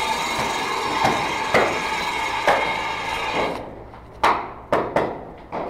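Paintball markers firing: sharp single cracks every half second or so over a steady rushing noise, which stops about three and a half seconds in. A few more separate cracks follow near the end.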